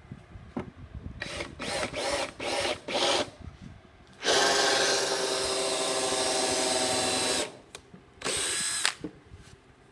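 Power drill boring a screw hole into wood: a few short bursts of the trigger, then a steady run of about three seconds, and one more short burst near the end.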